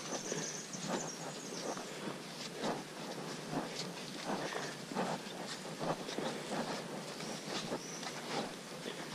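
Footsteps and rustling of several hikers walking on a dirt forest trail, an irregular step every half second or so. A high insect buzz comes and goes over it, in the first two seconds and again near the end.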